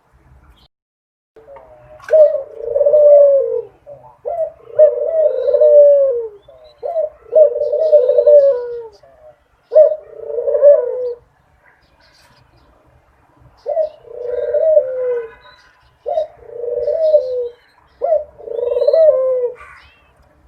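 Dove cooing: seven low coo phrases of about two seconds each, with a longer pause about halfway through.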